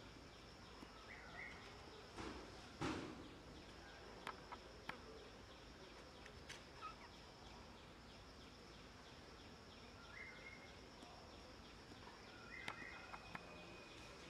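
Faint, steady, high-pitched drone of insects, with a couple of soft knocks two to three seconds in and a few short, faint chirps.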